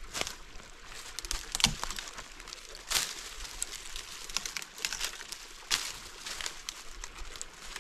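Irregular crunching and crackling footsteps on dry fallen leaves and loose stones, with a few sharper cracks.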